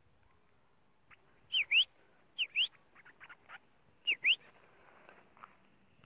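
Young white-breasted woodswallows (kekep) calling: three loud double calls, each note dipping and then rising in pitch, with a few shorter, fainter calls between.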